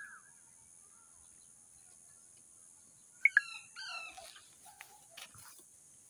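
A parrot gives a few short, sharp, falling chirps about three seconds in, the first two loudest, with another chirp just after and softer short calls following.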